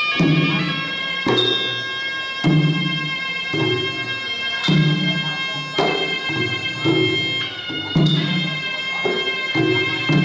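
Traditional Kun Khmer ring music: a sralai, a reed oboe, playing held melodic notes over hand drums struck about once a second.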